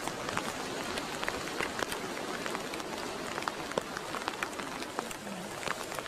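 Light rain pattering: a steady hiss dotted with many small, irregular drop ticks.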